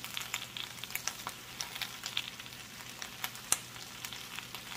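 Chopped cabbage sizzling in melted butter in a stainless steel frying pan just after it has been added, with a steady hiss and scattered crackles and pops.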